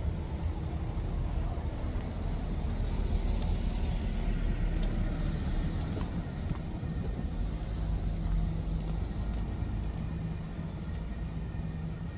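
Steady low rumble of passing car traffic, with a faint engine hum in the second half.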